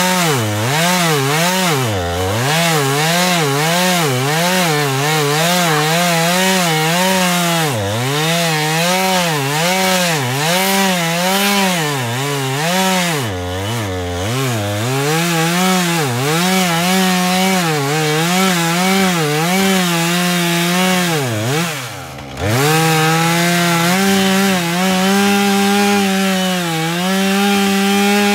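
Petrol chainsaw cutting into a log, its engine pitch rising and falling about once a second as it works in the cut. About three-quarters of the way through, the engine note dips sharply and the sound drops, then it comes straight back and holds a steady speed.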